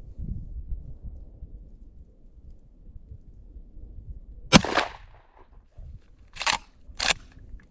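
A single shot from a Benelli Supernova 12-gauge pump-action shotgun firing a handloaded slug, about four and a half seconds in, with a short ringing tail. About two seconds later come two sharp clacks, half a second apart: the pump is worked back and forward to eject the spent hull and chamber the next round.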